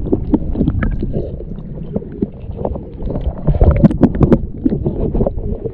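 Muffled sound of shallow salt water heard from an action camera held underwater: a dense low rumble of water moving against the camera housing, with many sharp clicks and gurgles, thickest past the middle.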